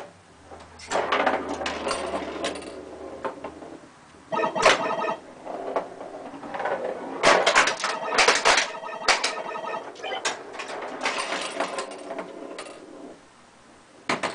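Bally Star Trek pinball machine in play: the ball clacking off flippers, bumpers and targets amid clicking relays and solenoids, with bursts of the game's electronic scoring tones as points pile up. It goes briefly quieter near the end.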